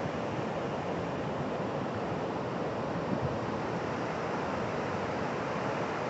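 Ocean surf breaking offshore and washing in thin sheets over a wide, flat sand beach: a steady, even rushing hiss.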